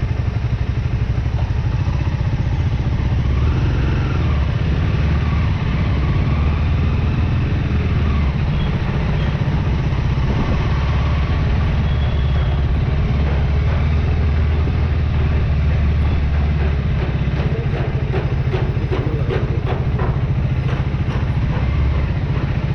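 Motorcycle engine running steadily with a strong low engine note. From about two-thirds of the way in, a fast run of fine ticks or clatter sits over it.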